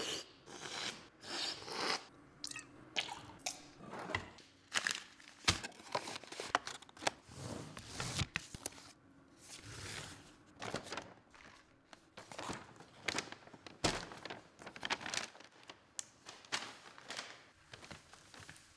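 Paper and cardboard packaging being handled: a quick, irregular run of crinkling, tearing and rustling, broken by taps and knocks.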